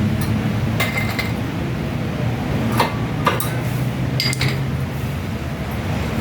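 Metal tools and brake parts clinking and tapping against each other: several sharp metallic clinks that ring briefly, over a steady low hum.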